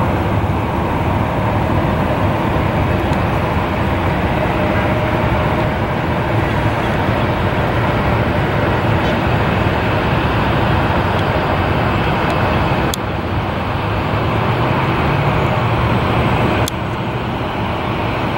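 Jet airliner engines running: a steady, loud noise with a faint whine in it. It drops suddenly, with a click, about two-thirds of the way through and again near the end.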